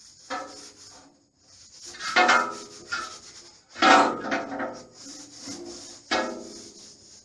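Four rubbing, scraping strokes, each starting sharply and fading, of a tool worked down the wall behind a radiator.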